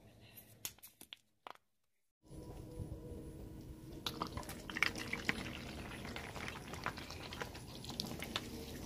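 Car tyre rolling over a pile of water beads, squashing them in a run of wet squelches and sharp pops that come thickest from about four seconds in. Just before it, a few sharp cracks as a toothpaste tube is squashed under the tyre, then a brief silence.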